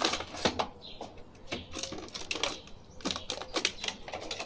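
Clear plastic packaging tray and cardboard box of an action figure crinkling and clicking as the figure is pulled out: a run of irregular sharp clicks and crackles.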